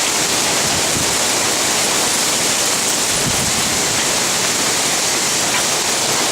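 Hail and heavy rain pelting down hard in a steady, dense hiss, with a brief low thump about three seconds in.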